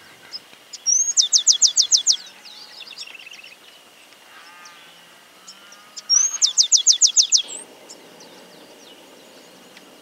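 Cachilo chaqueño (Chaco sparrow) singing: twice, a short rising whistle and then a fast ringing trill of about eight notes, each phrase followed by softer, lower trilling.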